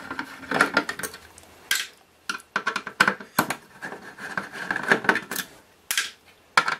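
Screwdriver turning out the screws that hold a circuit board, making a run of small metallic clicks and scrapes as the tool works against the screws and board.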